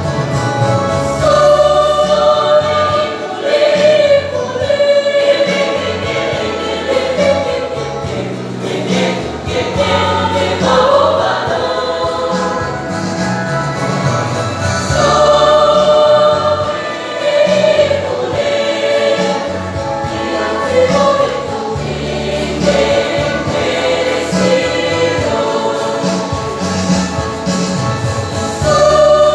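A mixed choir singing in several parts, sustained chords moving over a low bass line.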